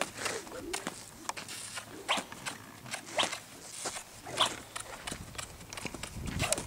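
Red roan Quarter Horse yearling colt trotting loose in a sand round pen: irregular soft hoofbeats, with a few louder sharp swishes about a second apart around the middle.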